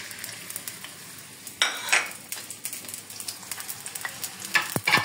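Freshly added sliced onion and a bay leaf sizzling in hot oil in an iron karahi: a steady frying hiss with crackles. A few sharper, louder clicks come about two seconds in and again near the end.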